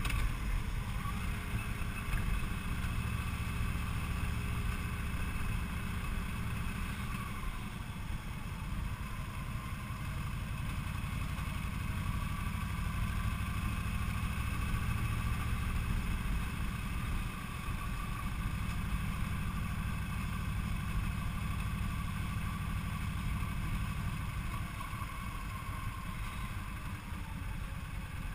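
Yamaha V-twin cruiser motorcycle riding at a steady pace: its engine runs evenly under the wind and road noise of riding.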